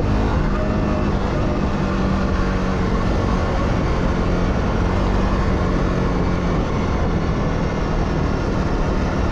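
Dirt-bike engine running steadily under way, a constant low drone with road and wind noise over it.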